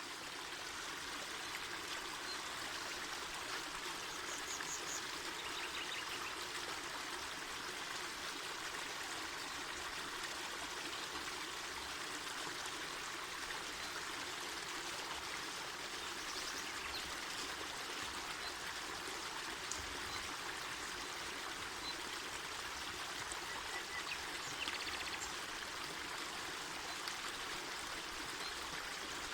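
Mountain forest river flowing: a steady, even rush of water.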